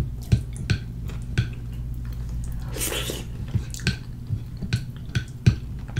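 Bare fingers squishing through soft food on a plate, along with wet chewing and smacking, close to the microphone: a string of short wet clicks, with one longer squish about three seconds in.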